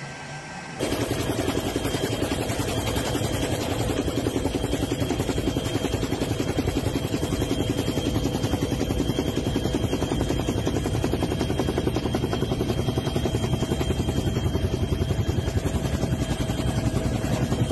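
Helicopter rotor and engine noise heard from on board: a steady, fast chopping with faint steady whines, cutting in suddenly about a second in.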